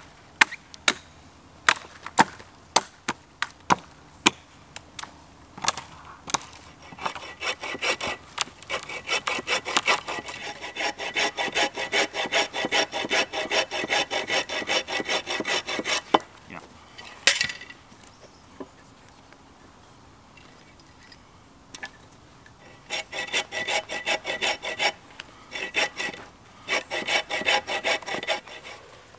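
Folding bow saw cutting through a green sapling pole: fast, rhythmic push-pull strokes in two spells, one long spell and then, after a pause, a shorter broken one near the end. Before the sawing starts there is a string of sharp wooden knocks.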